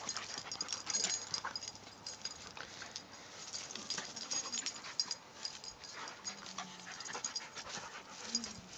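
A Norwegian Elkhound/Keeshond puppy and a boxer play-fighting on grass: dog sounds and panting over many small rustles and clicks of the scuffle, with two brief low vocal sounds about six seconds in and near the end.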